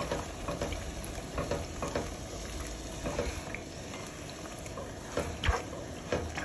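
Coconut milk poured over onions in a hot Staub cast-iron braiser, bubbling and sizzling while a slotted spatula stirs and scrapes across the pan with scattered clicks. There is a sharp knock about five and a half seconds in.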